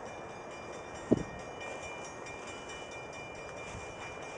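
Steady distant rumble of an approaching CN freight train, with a single sharp thump about a second in.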